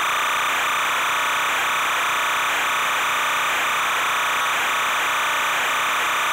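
A steady mechanical hum and hiss with a constant whine in it, never changing in level and with no separate knocks or clicks.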